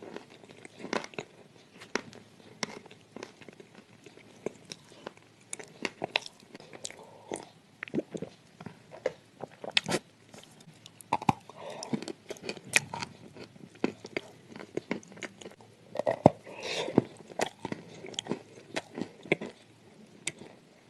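Biting and chewing of soft sand clay with paste: an irregular run of small crunchy crackles and clicks, with a few softer, wetter chews between them.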